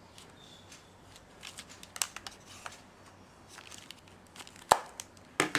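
Small plastic gadgets being handled: scattered light clicks and rustles, with one sharper click late on and two more just before the end.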